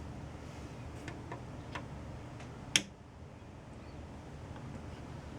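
The power switch of a vintage radio service monitor test set clicks off once, sharply, about halfway through, after a few faint ticks. It is heard over a steady low electrical hum that eases slightly after the click as the unit is shut down.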